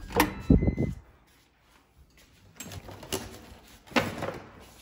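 Handle of a digital door lock turned with a click and the door clunking open, followed by rustling as a delivered food box and its bag are picked up.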